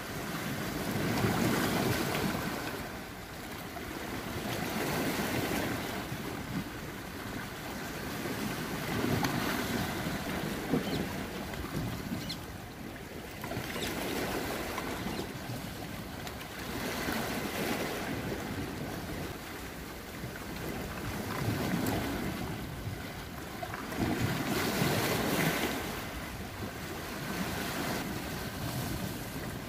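Sea waves surging in and washing back, a swell about every four seconds, with wind on the microphone.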